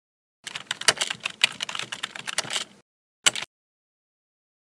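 Rapid clatter of keyboard-typing clicks, about two seconds long, then one short sharp burst about half a second later.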